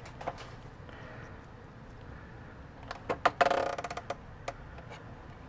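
Light clicks and taps of hands working plastic parts of a truck instrument cluster as gauge needles are pressed on. About three seconds in comes a quick run of clicks and a short clattering rattle.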